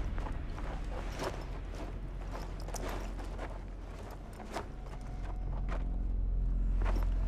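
Footsteps of people walking at an irregular pace over a low steady hum, with background music swelling in during the last couple of seconds.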